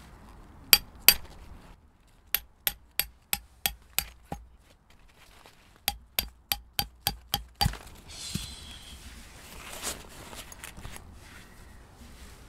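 A hammer driving a tent peg into the ground to pin down the tent's skirt. Two strikes, then two runs of quick strikes at about three a second, each strike ringing briefly.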